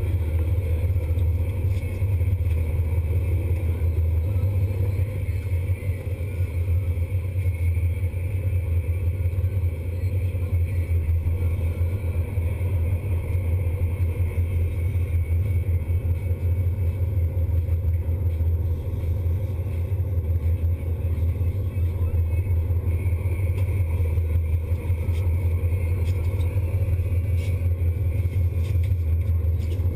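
A sportfishing boat's engines running steadily, a deep, even drone.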